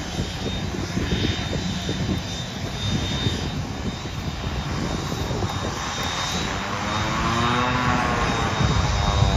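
Pilatus PC-9 trainer's turboprop engine running as the aircraft taxis: a steady engine and propeller drone with a thin high whine. From about six seconds in, a pitched propeller hum rises and bends as the aircraft turns toward the listener, and the sound grows louder near the end.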